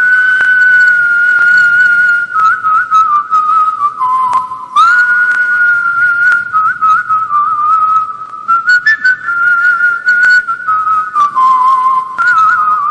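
A man whistling a melody into a microphone: a single clear, high tone held on long notes that step and slide up and down, ornamented with quick trills and warbles, with a rising scoop into a note about five seconds in.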